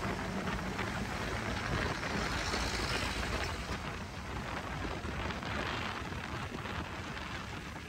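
Riding noise on a moving motorcycle: a steady, loud rush of wind buffeting the microphone over the engine and tyre noise.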